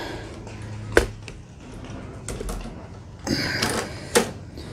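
Clicks and rattles of a self-propel cable being worked along and into the plastic holders on a push mower's handle, with two sharp clicks, one about a second in and one near the end.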